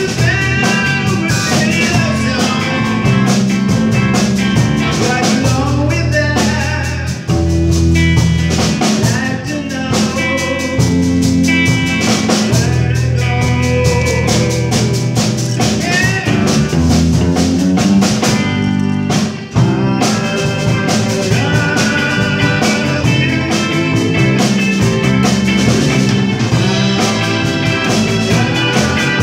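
A live band playing a rock song on electric guitars, drum kit and keyboards, with a sung vocal. The band drops out briefly about seven seconds in and again near nineteen seconds.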